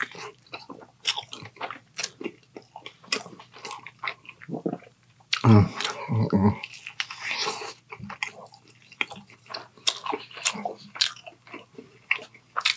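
Close-up biting and chewing of a TOGO's Triple Dip sandwich, a dipped sandwich roll, with many sharp mouth clicks and smacks. About halfway through comes a short low vocal sound from the eater, the loudest moment.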